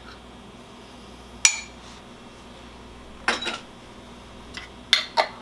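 A metal spoon clinking against a small glass jar of minced garlic and the slow cooker, one sharp ringing clink about a second and a half in, then a few lighter clinks and knocks as jars are handled on the countertop.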